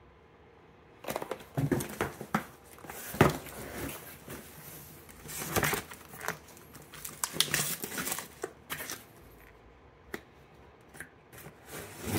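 Cardboard box rustling and scraping as it is pulled out and its lid opened, with the plastic of vacuum-sealed steak packs crinkling and a few light clicks near the end. It starts about a second in, after near quiet.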